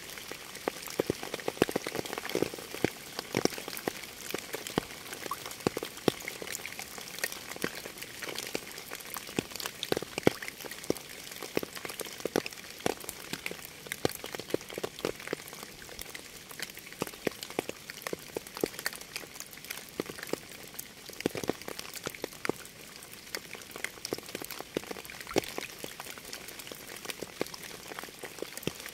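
Steady rain, with many separate drops striking close by.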